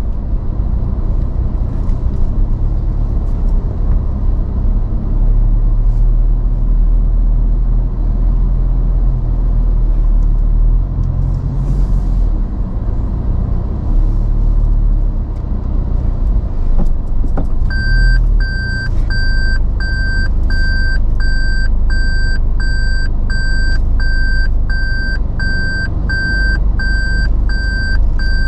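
Low, steady rumble of a Toyota Land Cruiser Prado driving slowly through a multi-storey car park. About two-thirds of the way in, a high electronic beep starts repeating about twice a second and keeps going.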